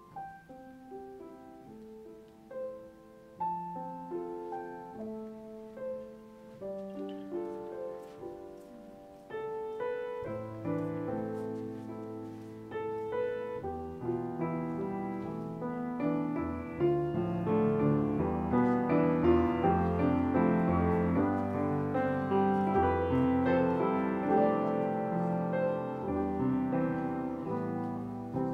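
Slow solo piano music, quiet and sparse at first, growing fuller and louder once low bass notes come in about ten seconds in.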